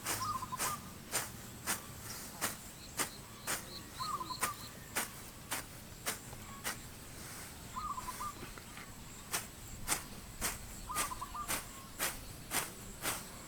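Rural outdoor ambience: a steady high-pitched insect drone, with sharp regular clicks about twice a second and a short trilling animal call that comes four times, every three to four seconds.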